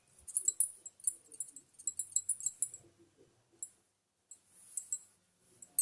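Hands working soft, oiled potato-and-poha dough into rounds: bursts of light, sticky clicking and faint clinking, busiest in the first three seconds and again near the end.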